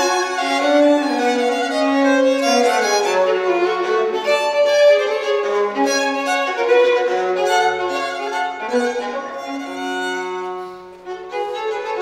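Two violins playing a duet, the notes moving steadily from one to the next; the sound dips briefly near the end before both carry on.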